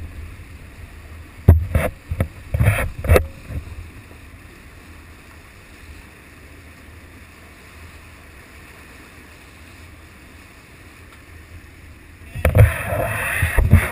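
White marlin thrashing in the water alongside the boat: sudden loud splashes about a second and a half to three seconds in, then a longer stretch of splashing near the end. Underneath runs the steady low rumble of the boat's engine as it backs down on the fish.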